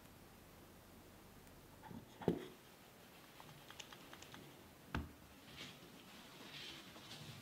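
Handling of a batter-filled metal muffin tin and spatula on a wooden table: a knock about two seconds in, a few light clicks, then a second sharp knock about five seconds in as the tin is taken up and moved, followed by soft rustling.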